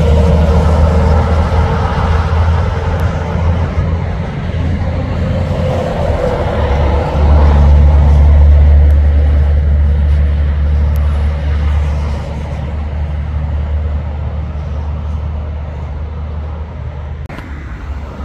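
A heavy diesel truck driving past on the road: a steady low engine drone with tyre and road noise, loudest about eight seconds in, then fading away as it passes.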